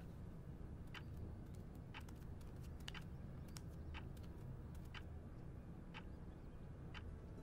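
A clock ticking steadily, one tick a second, over a faint low room hum.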